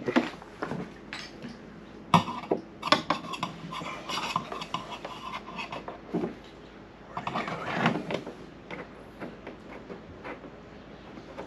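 Paintless-dent-repair knockdown tool tapping lightly and irregularly on a car's aluminium hood, bringing down a high spot left from pushing out a rock dent.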